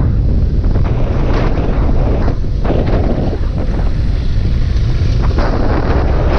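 Wind buffeting the microphone over the low rumble of a Honda Bros 160 single-cylinder motorcycle being ridden on a road test.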